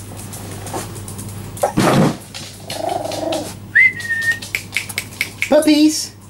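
Four-week-old Jack Russell terrier puppies whimpering, with one thin high squeal about four seconds in, amid small scuffling clicks.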